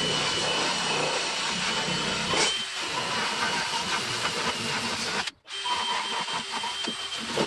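Electric drill with a small sandpaper attachment sanding the windshield frame: a steady motor whine over sanding noise. It stops suddenly a little past five seconds in, then starts again.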